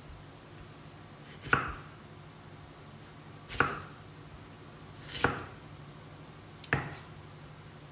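A large kitchen knife cutting thick slices from a peeled raw potato, each stroke ending in a sharp knock on a wooden chopping board: four cuts, about one and a half to two seconds apart.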